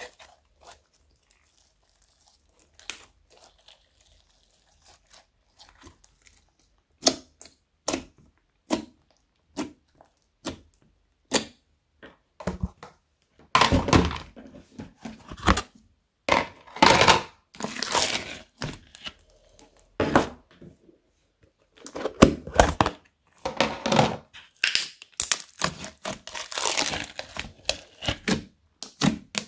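Hands squishing and folding a mix of old slimes, some with foam beads and sprinkles, giving sharp pops and crackles as air pockets burst. Single clicks come sparsely at first, then thick runs of crackling from about halfway through.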